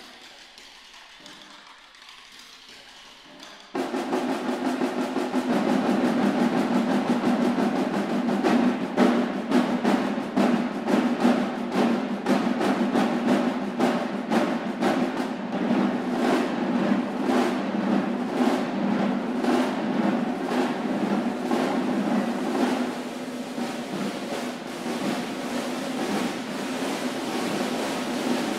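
An ensemble of snare drums enters suddenly after about four quiet seconds, a dense, rapid clatter of many sticks striking at once, and keeps going, easing a little near the end.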